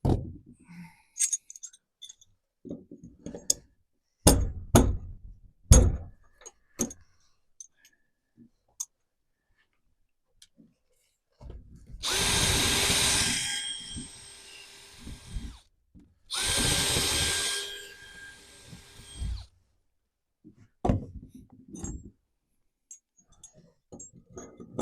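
A power drill runs in two spells of about three seconds each, with a short break between, working into the wood of the shed door. Knocks and clatter from handling tools and hardware come before and after.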